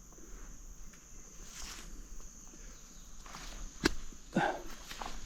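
Footsteps on the ground outdoors, with a single sharp click about four seconds in and a short falling sound just after it, over a faint steady high hum.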